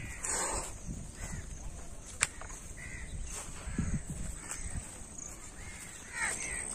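Birds calling outdoors: faint short arched calls here and there, with several close together about six seconds in, over a low rumble. A single sharp click about two seconds in.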